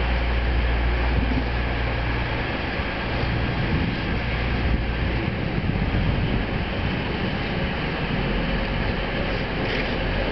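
Class 185 diesel multiple unit drawing slowly into a platform: a steady diesel engine hum under wheel and rail noise. The deep engine note eases about five seconds in.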